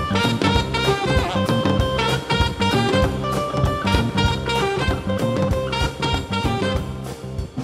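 Background music with a steady drum beat and a melody.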